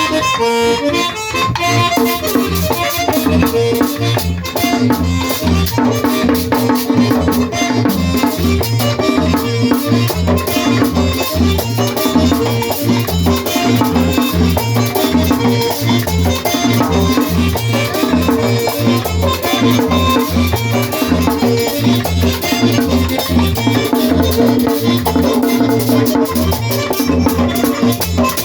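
Merengue típico played live: a fast, steady drum beat with the scraping rattle of a güira running through it.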